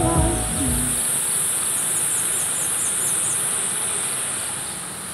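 Insects keeping up a steady high-pitched drone, with a quick run of short high chirps about two seconds in, over a faint even rush underneath.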